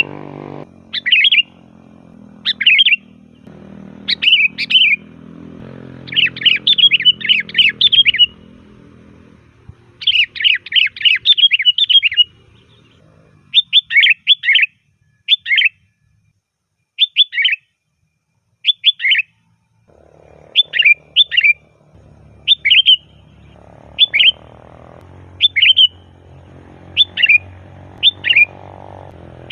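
Sooty-headed bulbul singing loud, lively song: short liquid phrases, some in quick flurries of several notes, others spaced about a second apart.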